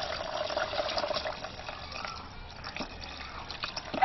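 Water poured from a jug into a bowl of orange bambara-nut okpa batter, a steady splashing pour that thins out about halfway through.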